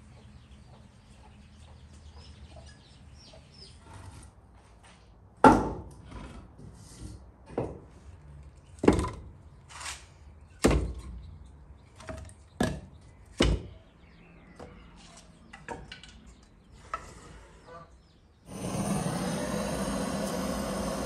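Split firewood logs knocked against each other and onto the brick floor of a wood-fired oven as they are stacked, about eight sharp knocks through the middle. Near the end a handheld gas blowtorch starts with a steady roaring hiss as it lights the wood.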